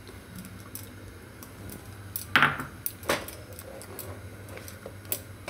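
A spatula stirs and scrapes a thick cashew-fig paste in a steel pan, with bangles clinking on the stirring wrist. There are a couple of louder scrapes or knocks about two and a half and three seconds in.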